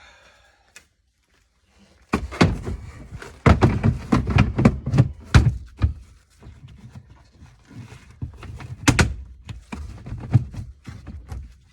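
A long run of heavy, irregular thuds and knocks starting about two seconds in: the full-size spare tire and cargo floor being handled and dropped into place in the Prius's rear cargo well.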